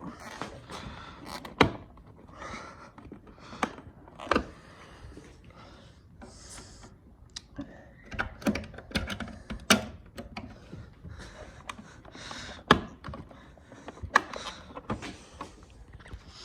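Irregular sharp clicks and taps, with a few short scrapes, of a pry tool working against a car side-mirror housing to release its clips.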